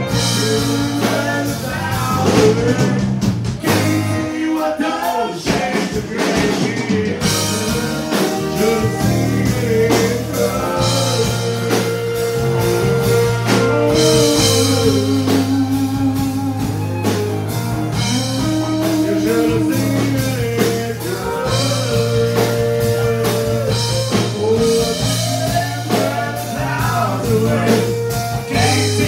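Live country band playing: acoustic guitar, fiddle, electric bass and drum kit, with a steady bass line and drumbeat under a wavering melody line.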